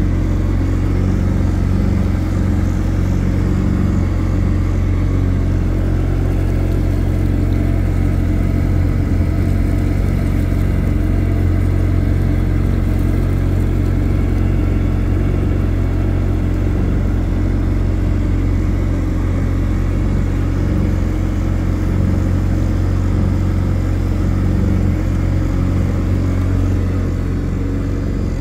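Boat engine running steadily at low cruising speed, a constant low drone with even overtones.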